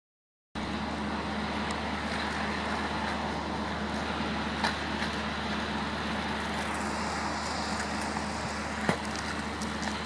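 Steady low motor hum under an even hiss, with two sharp clicks, one about halfway through and one near the end.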